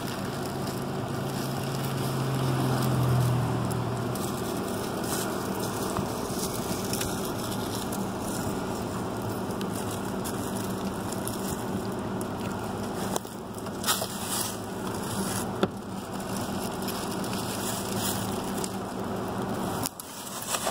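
Roadside ambience: a vehicle passes in the first few seconds, its hum rising and fading, then a steady background hum with crackling of dry leaves and a few sharp clicks.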